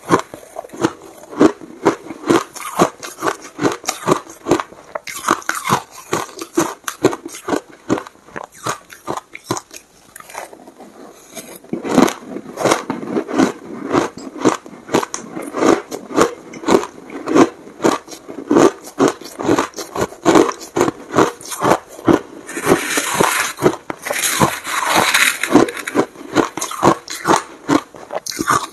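Close-miked chewing of crushed ice: a fast, even run of crisp crunches, about two a second, with a quieter lull about ten seconds in before the crunching picks up again.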